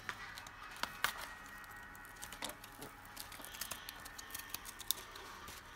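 Scattered small clicks and light rustling of plastic toy packaging being handled and picked at by hand.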